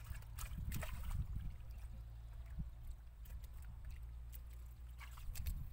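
Shallow muddy water splashing and sloshing as feet and hands move through it, with a few sharp wet splashes near the start and again near the end, over a low steady rumble.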